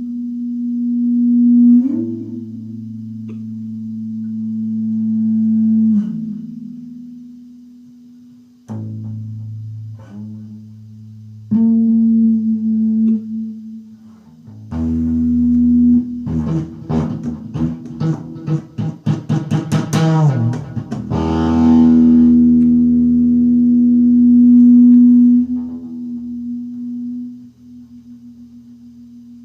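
Distorted electric guitar held in feedback: a sustained humming tone with a new note struck every few seconds, a stretch of fast repeated picking in the middle, then a long held feedback tone that fades near the end.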